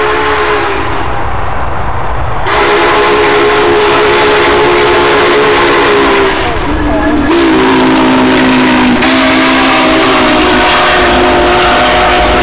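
Union Pacific 844's steam whistle blowing a chord in three long blasts as the 4-8-4 steam locomotive passes close by, over the steady rumble and hiss of the train. The chord sounds slightly lower from about six seconds in, as the engine goes by.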